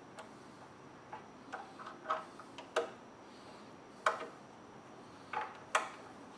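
Irregular light clicks and knocks, about nine of them with the sharpest about four seconds in, from hand tools and plastic parts being handled while a car's air intake is taken off.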